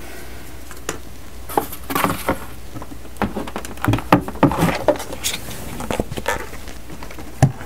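Hands handling thin styrene plastic sheets and tools on a workbench cutting mat: irregular light taps, clicks and rustles, with a firmer knock as something is set down near the end.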